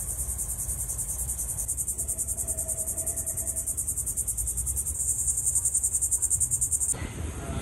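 Insect calling: a loud, high, fast-pulsing buzz that cuts off near the end.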